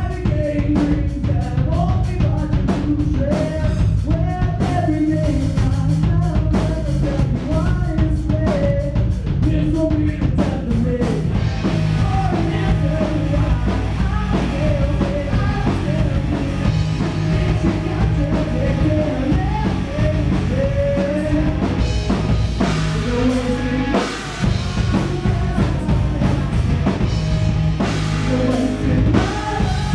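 Live rock band playing: drum kit, electric guitar and bass guitar, with a sung melody over them. The low end drops out briefly about three quarters of the way through before the full band comes back in.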